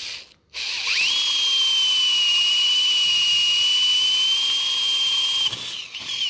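Cordless drill spinning up under a second in and running at a steady high whine for about five seconds as its bit bores the spindle hole in a timber door. It wavers and stops near the end.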